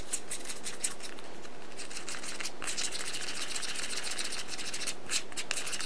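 Plastic spoon stirring and scraping a powder-and-water batter in a small plastic candy-kit tray: a quick, continuous run of small scrapes and clicks, getting denser and hissier about halfway through.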